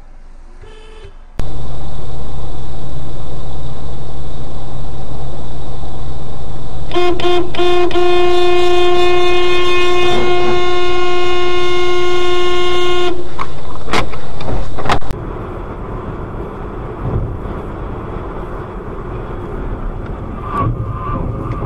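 Loud road and traffic noise, with a car horn that gives a few short toots and is then held for about six seconds. The horn cuts off, leaving quieter road noise.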